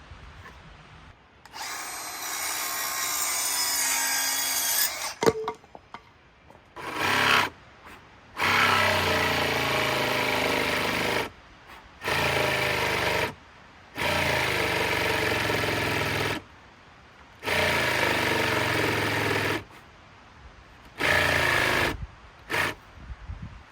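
Power drill driving screws into cedar boards: a series of runs lasting two to three seconds each, with short pauses between them and two brief bursts near the end.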